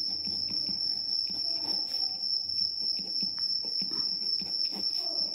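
Pen scratching on paper as a line of handwriting is written, in short irregular strokes, over a steady high-pitched tone.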